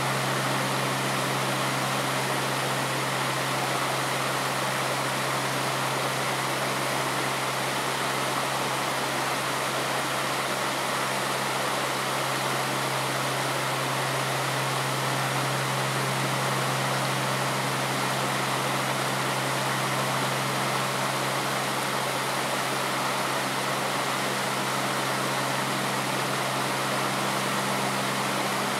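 Steady rushing of running stream water, with a low steady hum underneath.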